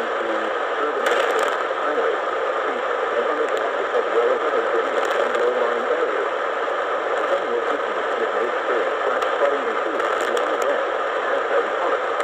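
Weakly received radio broadcast: steady hiss and static that all but drowns a faint voice reading a flash flood warning, nearly inaudible.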